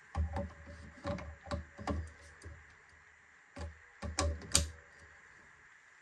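A camera battery being fitted onto the end of a motorised camera slider: a series of plastic-and-metal knocks and clicks in two bursts, the loudest click near the end of the second burst, over a steady faint fan hum.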